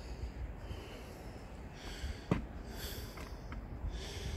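A person breathing hard and sniffing close to the microphone after a climb, over a low rumble, with one sharp click about halfway through.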